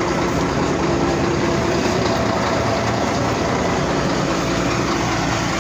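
Forklift engine running steadily while it holds up one side of the bulldozer's track.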